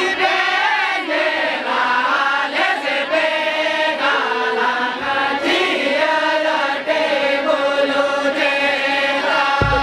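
Men singing a Santali lagne song together, with violin and a keyboard instrument playing along. A low thump comes right at the end.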